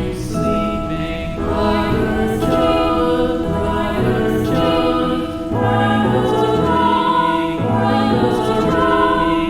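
Slow, calm music with voices singing long held notes in chords that change every second or two.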